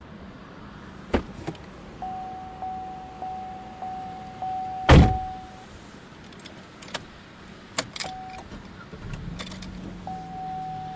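A car door opens with a couple of clicks and a warning chime dings repeatedly, then the door shuts with a loud thump about five seconds in. A few more clicks follow, and about nine seconds in the engine starts and settles into a low idle while the chime dings again.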